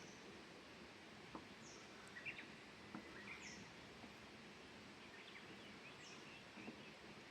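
Quiet outdoor ambience: a distant bird repeats a short, high, falling call every couple of seconds, with other faint chirps and a few soft clicks.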